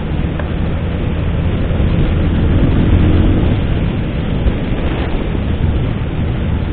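Suzuki Hayabusa's inline-four engine running while riding, over a steady rush of wind and road noise; the engine grows louder around the middle, then eases.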